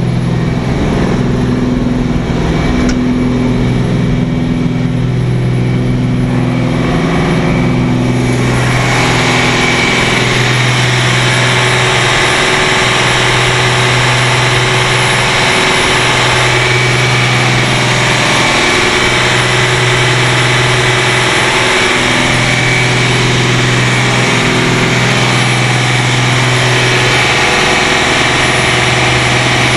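Twin Cummins QSC 600 hp marine diesel engines running steadily at about 2500 rpm, heard up close in the engine room. The sound turns louder and brighter about eight seconds in.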